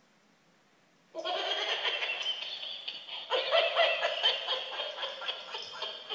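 A plush pig toy's built-in sound unit playing through a small speaker, with no bass. It starts suddenly about a second in, then breaks off and starts again a little after three seconds.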